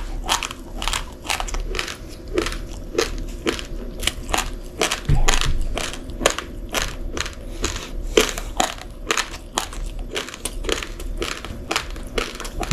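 A person chewing a mouthful of raw, uncooked rice grains, with a quick run of sharp crunches about three a second.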